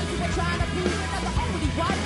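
A band playing loud, upbeat rock music, with electric guitars, drums and vocals.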